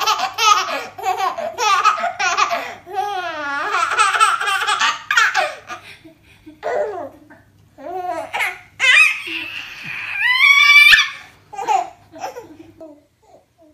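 A baby laughing in a run of short, repeated bursts, then babbling, with high-pitched squeals later on.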